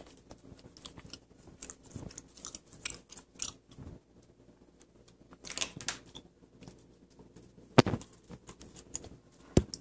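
Sharpie permanent marker scratching and squeaking across a tablet's glass screen in short strokes, with two sharp clicks near the end.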